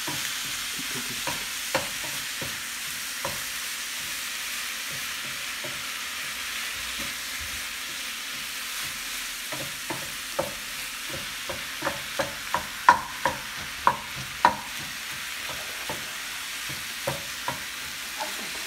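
Beef mince, onion and grated carrot sizzling steadily in oil in a frying pan while being stirred, the mince browning. A spoon scrapes and taps against the pan, the taps coming thickest about ten to fifteen seconds in.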